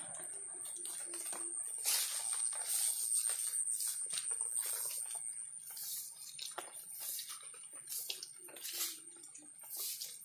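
Footsteps and rustling as someone walks through long grass and weeds, a string of irregular brushing and crunching strokes, loudest in the first half. A steady high-pitched tone runs underneath.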